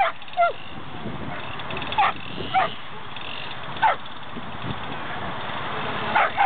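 A dog barking in short, sharp yelps, one every second or two, over a steady background hiss.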